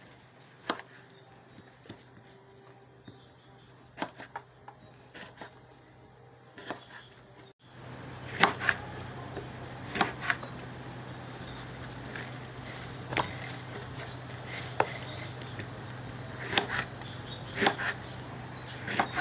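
Kitchen knife slicing Dayak eggplant on a plastic cutting board: irregular sharp taps of the blade striking the board. A low steady hum runs underneath from about halfway through.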